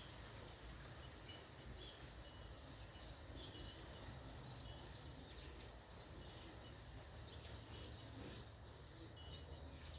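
Faint bird chirps, short and scattered, over a low steady rumble.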